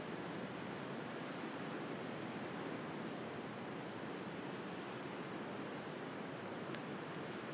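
Steady wash of sea waves with the faint crackle of a wood bonfire, a few small pops, the clearest near the end.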